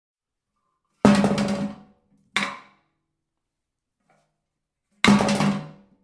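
Metal cans tossed into a trash bin, landing with a clatter three times. The first and last clatter and rattle for nearly a second; the middle one, about a second and a half after the first, is short. A faint knock comes just before the third.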